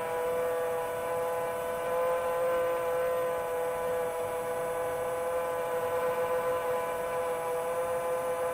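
Quadcopter motors and propellers whining steadily in cruise, a held multi-tone hum that wavers slightly in pitch with throttle.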